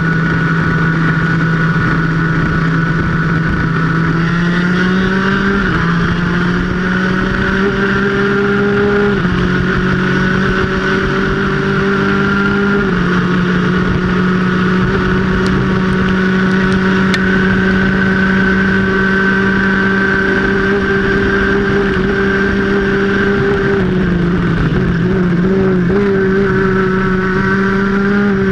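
Superkart engine running at high revs, heard onboard with a constant rush of wind and road noise. The engine holds a fairly steady buzzing pitch with small shifts, dips and wavers about 24 seconds in as the kart slows for a corner, then climbs again.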